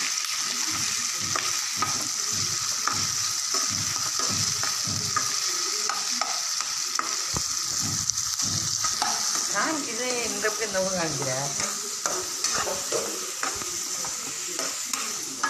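Chopped onions, green chillies and tomatoes sizzling in hot oil in a non-stick kadai, stirred with a metal spoon that scrapes the pan in repeated strokes.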